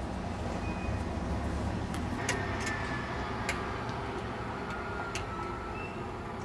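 Low rumble of a truck on the road, strongest in the first couple of seconds and then easing off, with a few sharp metallic ticks, some ringing briefly, in the middle.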